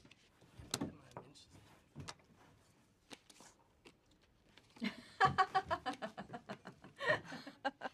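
A few light knocks and clicks in a quiet room, then people's voices talking from about five seconds in.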